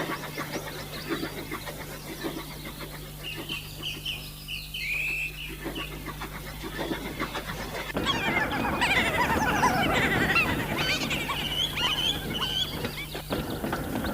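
Birds calling in short quick series, first alone and later over a busy rattling clatter, with a steady low hum underneath.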